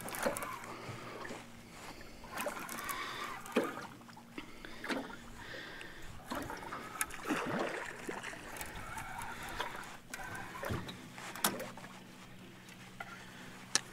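Small waves lapping and splashing against the hull of a jon boat, with scattered light knocks and a faint steady hum underneath.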